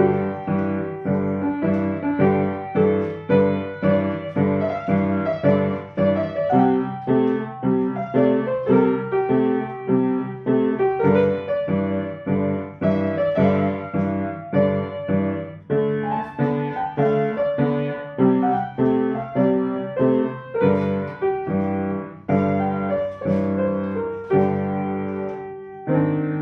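Solo piano played at a moderate, even pace, a steady run of single notes over held bass chords, with the phrase coming to rest near the end.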